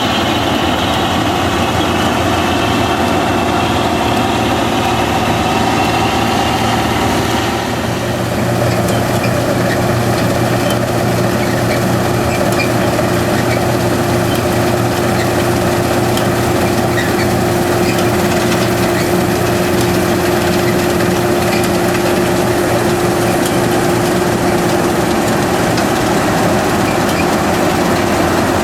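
Harvest machinery engines running steadily under load. About eight seconds in the engine note changes, and from there a steady hum holds.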